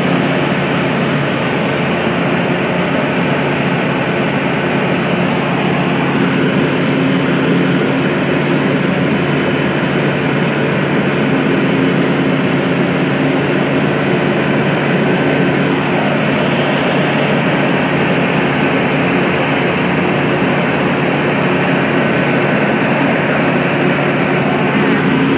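Small single-engine propeller plane's engine and propeller droning steadily in cruise, heard from inside the cabin.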